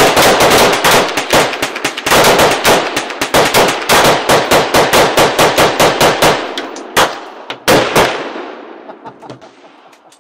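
A volley of rifle fire from several AR-15 and AK-47 type rifles shooting together, with many sharp shots overlapping several times a second. It thins to a few last single shots about seven to eight seconds in, then the echoes die away.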